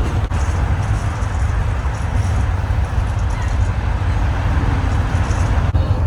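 Steady low rumble of a moving vehicle, with a noisy hiss above it.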